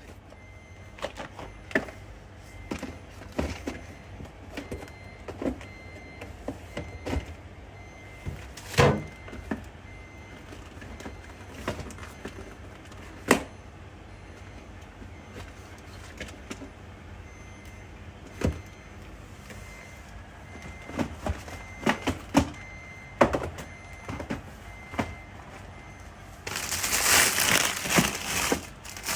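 Scattered knocks and clunks of things being handled and set down, with cupboard doors closing, over a steady low hum. A few seconds of loud rustling near the end.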